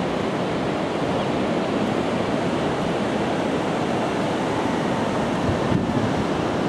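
Pacific Ocean surf washing in as a steady, unbroken rush of noise.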